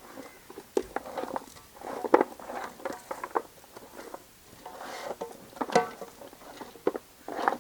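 Pieces of buffalo trotter being mixed with chopped onion, tomato and spice paste in a vessel: irregular wet squelches and sharp knocks of bone against the pot.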